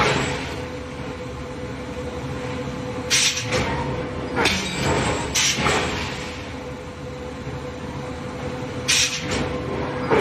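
Open-die forging machinery running with a steady hum and a held tone, broken by four short bursts of hiss and clatter.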